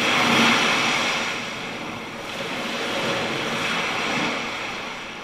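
Sea waves washing onto a beach: a steady rush of surf that swells twice and fades away near the end.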